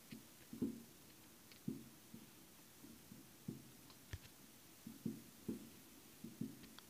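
Distant New Year's fireworks going off: faint, irregular dull thuds and pops, about one or two a second, with one sharper crack about four seconds in.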